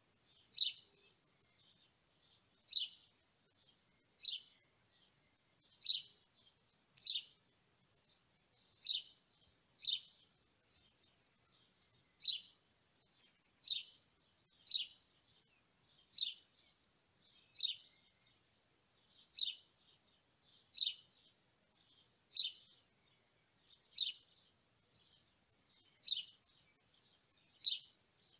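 A bird repeating one short, high chirp every one to two seconds.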